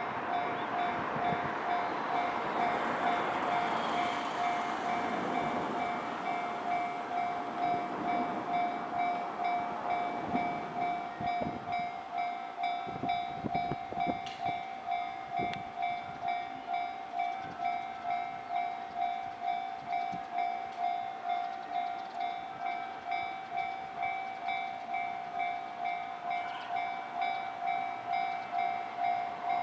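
Japanese level-crossing warning bell ringing in an even, repeating ding-ding throughout. In the first half a train runs over the crossing, its rumble and a few wheel knocks under the bell.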